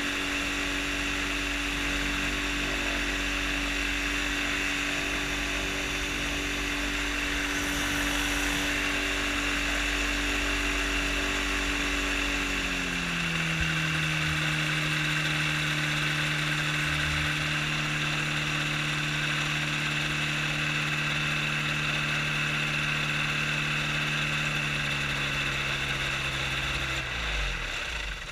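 Engine and propeller of a float-equipped hang-glider trike running steadily while taxiing on water, with water and wind hiss. About halfway through the pitch drops as the throttle is eased back, and a second or so before the end the engine winds down and stops.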